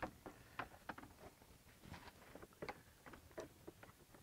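Faint, scattered light clicks and taps of a hard plastic radiator cover panel being handled, lifted and laid down on a pickup's front end.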